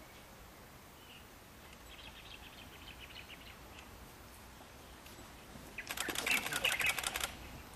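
Faint bird chirping, then about six seconds in a loud, rapid fluttering rattle that lasts about a second and a half.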